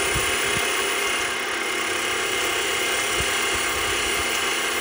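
Small grinding wheel on a spindle running steadily with a steady whine, while a small water-jet-cut metal button is held against its edge to grind off the cutting tabs.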